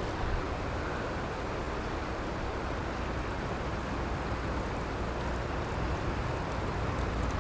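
Steady rush of a shallow, fast river flowing over cobbles and around the wader's legs, an even noise without breaks.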